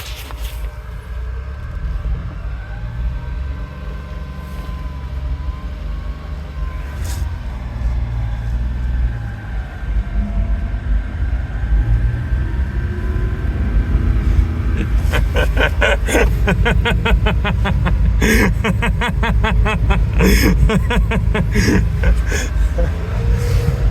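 Small engine of a modded racing lawn mower running and revving, with a steady low rumble underneath. From about 15 seconds in, a fast, even pulsing grows louder as the engine is worked harder.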